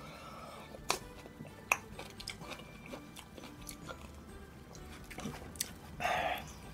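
Close-up eating sounds: a man taking spoonfuls of kimchi jjigae and chewing, with small wet mouth clicks and two sharper clicks early on. A short, louder breathy sound comes about six seconds in.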